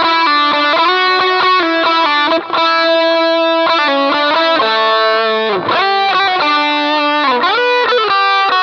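Electric guitar lead played through a Shark Rock You Drive distortion pedal on its own, with the Gain Drive Booster switched off. It plays held, distorted single notes, with string bends about halfway through and again near the end.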